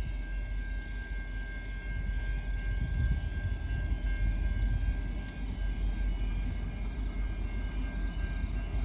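V/Line N class diesel locomotive running under load, a steady low rumble with a constant high-pitched whine over it.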